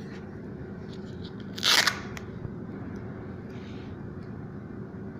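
A short, crinkly crackle about one and a half seconds in, then a fainter rustle a couple of seconds later, from adhesive tape being handled and pressed down along the edge of an opened tablet. A steady low hum runs underneath.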